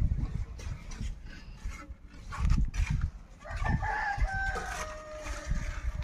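A rooster crowing once, a stepped call of about two seconds starting about three and a half seconds in, its pitch dropping toward the end. Low rumbles and thumps sound earlier.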